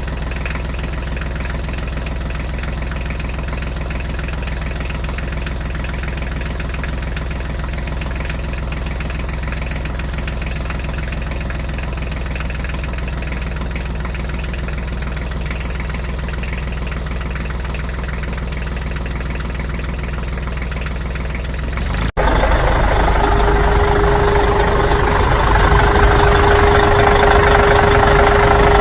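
Engine idling steadily. About 22 seconds in it cuts abruptly to a louder engine sound with a steady whine over it.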